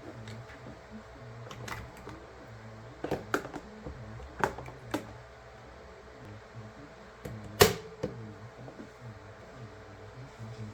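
Scattered sharp knocks and clicks of household objects being handled and set down, one much louder knock about seven and a half seconds in, over a low steady hum.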